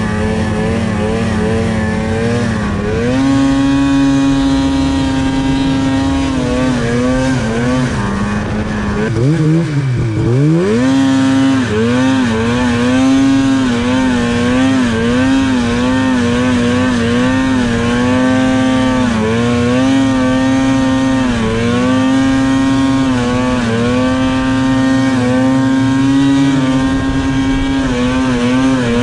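Snowmobile engine running under throttle, heard from the sled being ridden, the revs rising and falling over and over as the throttle is worked. About nine seconds in the revs drop steeply and climb straight back.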